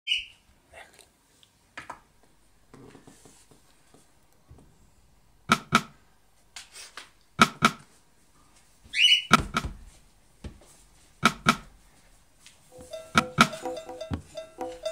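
Electronic groovebox being played live as a beat is built up: sparse pairs of drum hits about every two seconds, then, near the end, a quick stepping synth sequence joins in. Two brief high whistle-like tones sound, one at the start and one in the middle.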